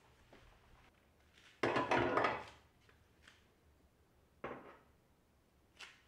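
Kitchen handling sounds while cleaning the oven and stove: a loud clattering knock of hard objects about a second and a half in, a lighter knock later, and a sharp click near the end.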